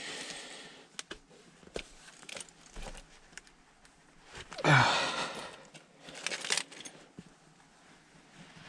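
A man straining with a wrench against a tight gas valve fitting: a heavy exhale of effort about halfway through, among scattered sharp clicks and taps of tool on metal.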